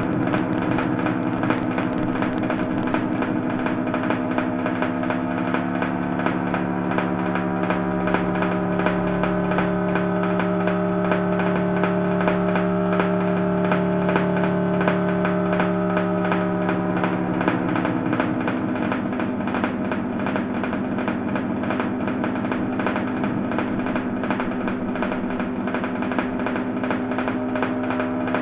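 Electronic music of held, buzzy synth chords that change pitch about four seconds in and again about eighteen seconds in.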